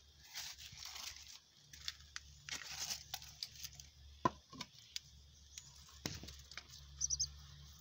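Dry leaves and litter rustling and crinkling in irregular bursts, with a few sharp clicks about four, four and a half and six seconds in.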